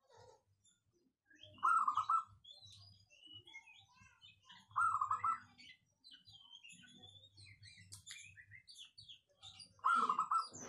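Zebra dove (perkutut) cooing: three short, stuttering coo phrases about two seconds in, about five seconds in, and near the end. Faint high chirps of other small birds sound in the background between them.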